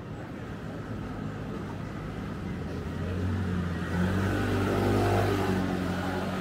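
A motor scooter passing close by on the street. Its engine hum grows louder over the first few seconds, is loudest about four to five seconds in, then eases off a little as it moves away, over a steady background of city traffic.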